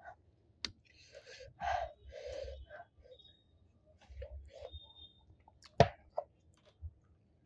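Close-miked eating sounds: a person chewing rice and chicken curry eaten by hand, with a few short sharp breaths and small wet clicks, and one loud sharp click about six seconds in.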